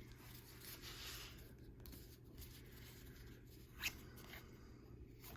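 Faint sliding and rubbing of baseball cards as they are handled and flipped one behind another, with one short, sharper swish about four seconds in.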